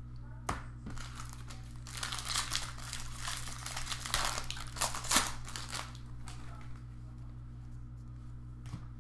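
Foil wrapper of a baseball card pack crinkling and tearing as it is ripped open, busiest in the middle few seconds, after a couple of light clicks in the first second.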